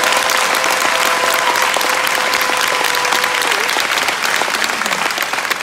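Large audience applauding, a dense, steady mass of hand claps. A steady held tone sounds underneath and ends about three and a half seconds in.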